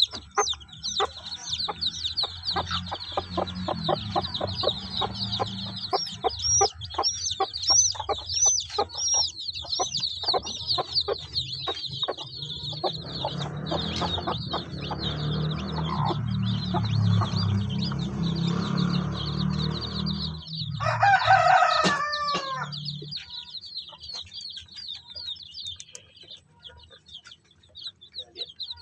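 Day-old chicks peeping constantly in high, falling notes while the broody hen clucks low and rapidly beside them. About three-quarters of the way through, an adult chicken gives one loud call of a few falling notes, the loudest sound, and after it the low clucking stops and only the peeping goes on.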